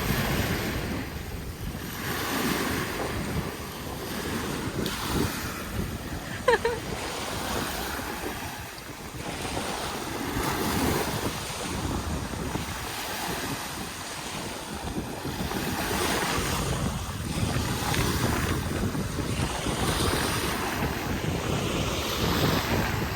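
Ocean surf washing onto a beach in slow swells, with wind buffeting the microphone. A short high-pitched cry stands out about six seconds in.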